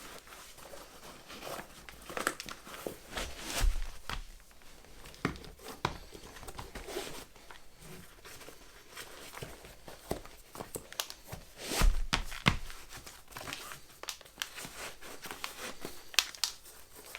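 Crinkling and rustling of hiking shoes being pulled on and laced, the upper and laces rubbing and scraping, with two dull thumps a few seconds in and about twelve seconds in.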